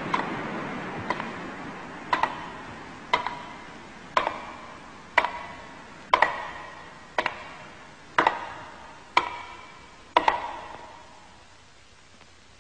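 Wooden geta clogs clacking on hard ground in slow, even steps, about one a second, each clack ringing with an echo. The steps stop a little after ten seconds in.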